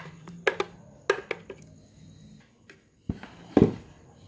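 Kitchen utensils clinking and scraping against a strainer and bowl as blended pineapple and ginger is strained. A quick run of sharp clicks comes in the first second and a half, then a heavier knock about three and a half seconds in, the loudest sound.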